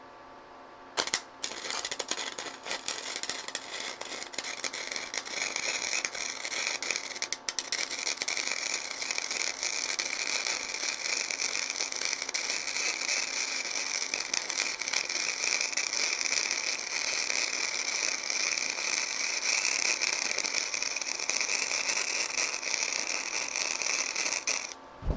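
Flux-core wire-feed welding arc on steel from a Forney Easy Weld 140 FC-i: a brief strike about a second in, then a continuous crackle that stops suddenly near the end. The welder thinks the bead needs a little more wire feed and a touch more voltage.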